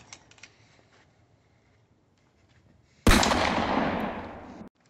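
A single gunshot, most likely an added sound effect, about three seconds in: loud, with a long echoing tail that cuts off abruptly. A few faint scuffling clicks come before it.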